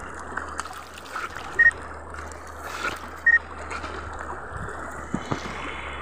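Shallow stream running over rocks, with splashing as water is scooped up to wash a face. Two short, louder sounds come about a second and a half apart.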